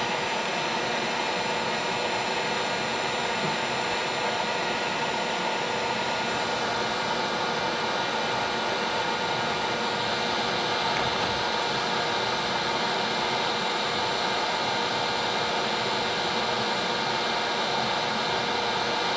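Gas torch flame hissing steadily as it preheats the hardened steel fingers of a hay rake before welding.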